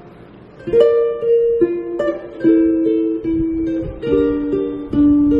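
Ukulele played on its own: after a brief pause, chords are struck one after another, each ringing on into the next.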